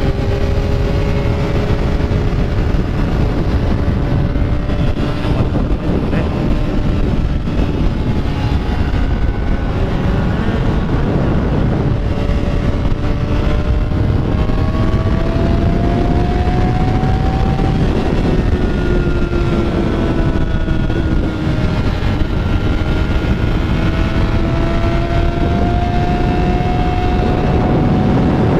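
Motorcycle engine running under way, its pitch drifting slowly up and down with the throttle, over a steady rush of wind noise.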